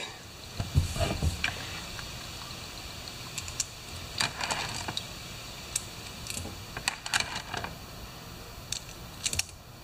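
Irregular light clicks and taps of small metal bolts and debris, fished out of a chainsaw fuel tank, being handled and set down on a rag on a workbench.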